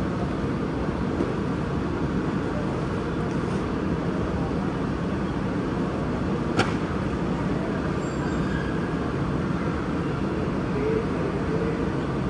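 Steady low background din of a busy shopping mall, with faint distant voices now and then and one sharp click about six and a half seconds in.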